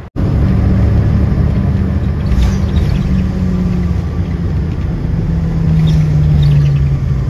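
Ride noise inside a moving vehicle: a steady low rumble with a held low hum that drops a little in pitch about five seconds in.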